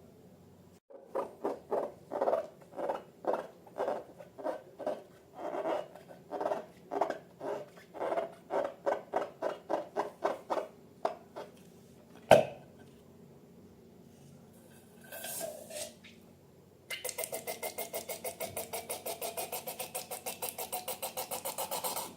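Slime being squeezed and worked with balloons, a run of wet squishes about two to three a second. Then one sharp loud pop, a short hiss, and about five seconds of rapid, even buzzing rasp like air escaping through a stretched balloon neck.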